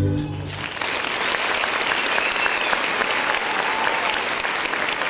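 Audience applauding, a dense, steady patter of clapping that swells in about half a second in as the last chord of the ballet music stops.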